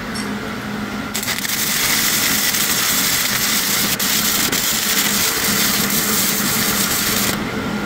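Electric welding arc crackling and sizzling as a weld bead is run, starting about a second in and cutting off near the end, over a steady low hum.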